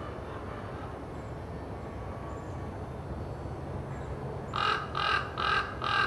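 A crow cawing: a run of caws in quick succession, about two a second, starting past the middle, over a steady low background rumble.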